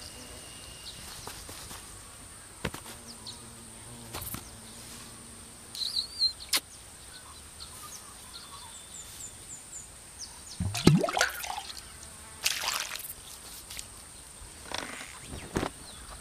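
Sound effects of an animated film over a faint steady outdoor hiss: scattered soft noises and a few small chirps and ticks, the loudest a short sweep rising in pitch about eleven seconds in, with two noisy swishes after it.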